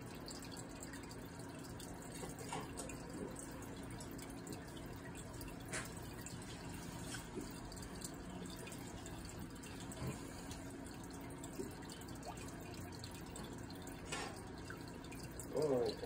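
Faint steady low hum with a few scattered light clicks.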